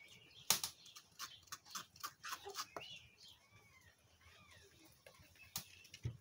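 Coconut shell and knife being handled on a cloth-covered table: a sharp knock about half a second in, scattered light clicks, and another knock near the end. A few faint chirping animal calls sound in the background around the middle.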